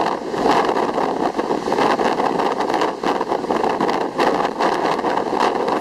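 Strong wind blowing over the microphone, a steady rushing noise that swells and eases in gusts.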